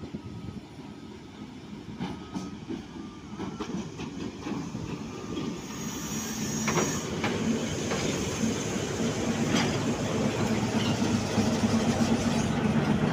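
Pakistan Railways HBU-20 diesel-electric locomotive 8079 arriving with its passenger train, its engine drone and wheel noise growing steadily louder as it comes up close and passes. A few short knocks come from the wheels over the track.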